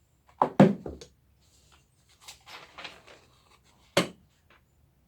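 Chair parts being handled during assembly: a quick cluster of loud knocks and clatters about half a second in, some softer rustling and scraping, then one sharp knock near the end.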